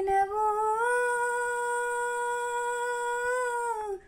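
A woman's voice holding one long unaccompanied note, rising slightly in pitch about a second in and falling off just before it stops near the end.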